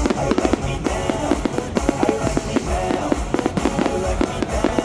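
Fireworks bursting in quick succession, several bangs a second, over loud music with a drum beat.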